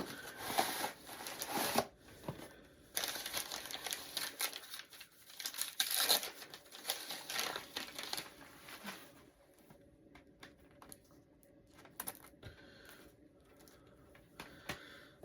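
Packaging being handled while a parcel is unpacked: crinkling and rustling in several bursts over the first eight seconds or so, then quieter handling with a few small clicks.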